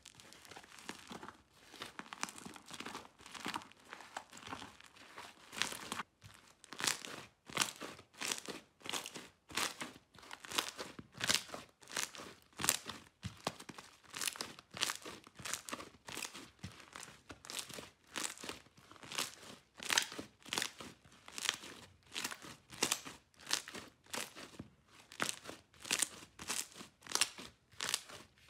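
Hands kneading and stretching a large glossy slime, the slime crackling and popping with trapped air as it is squeezed and pulled. For the first six seconds the crackle is almost continuous; after that each squeeze gives a separate crackly pop, about three every two seconds.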